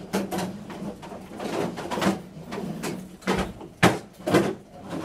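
A run of sharp knocks and thumps, several in quick succession. The loudest come a little past the middle, one with a deep thud. A steady low hum runs underneath.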